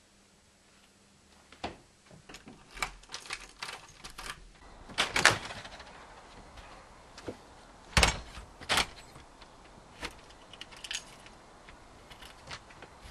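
Clicks, knocks and rattles of a white uPVC front door being opened, shut and locked by hand, with keys jangling. The loudest knocks come about five and eight seconds in, the second a heavy thump.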